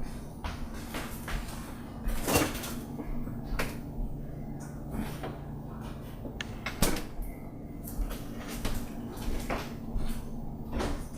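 Irregular knocks and clunks, a few seconds apart, over a steady low hum; two of the knocks stand out as loudest, one about two seconds in and one about seven seconds in.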